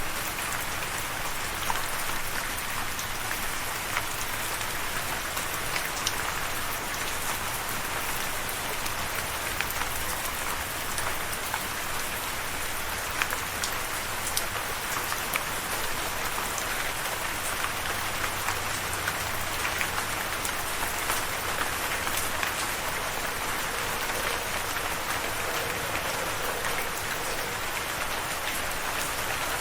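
Steady rain falling on a surface, a continuous patter with many individual drop strikes heard through it.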